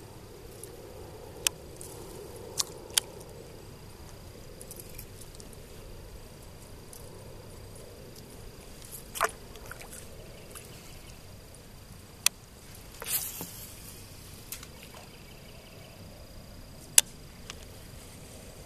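About eight short, sharp clicks and knocks at irregular intervals, one slightly longer and rougher a little past the middle, over a quiet steady outdoor background with a thin high tone.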